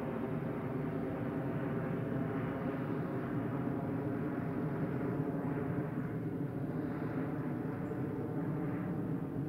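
A steady engine drone, a low hum with many even overtones that holds level without rising or falling.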